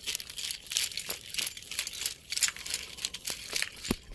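Irregular crackling and rustling handling noise from a phone being turned in the hand, its microphone rubbing against fingers or clothing, with a few sharper clicks near the end.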